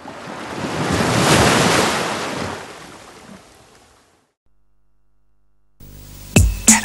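Surf: a wave breaking close by, its rush of water swelling to a peak after about a second and dying away over the next few seconds. A short silence follows, then music with a heavy drum beat starts near the end.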